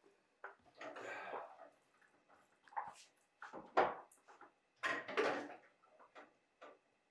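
Glass mason jars and raw salmon pieces being handled on a stone countertop while the salmon is packed into the jars: a series of separate clinks, knocks and rustles about a second apart.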